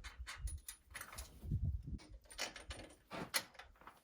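Socket wrench on an extension clicking and clanking against metal while a Stover lock nut is run onto a bolt: a string of irregular sharp clicks with a few dull knocks.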